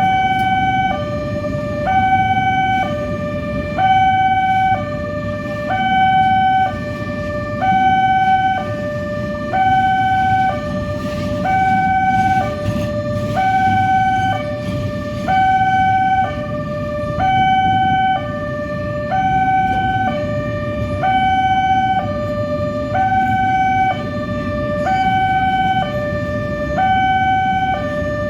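Railway level-crossing warning siren sounding a steady two-tone hi-lo wail, switching between a higher and a lower tone about once a second, with road traffic noise beneath.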